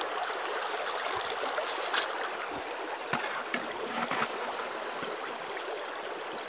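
Creek water rushing steadily through a sluice box and over its riffles, with a few sharp ticks partway through.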